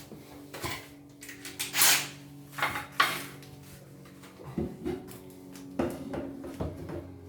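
Irregular knocks, clicks and clatter of hard furniture parts and hardware being handled, with a louder scraping rush about two seconds in and a sharp click about three seconds in.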